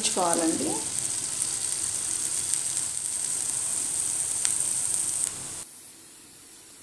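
Drumstick and besan (gram flour) curry sizzling steadily in a pan over a low flame, an even high hiss. It cuts off suddenly about five and a half seconds in, leaving quiet room tone.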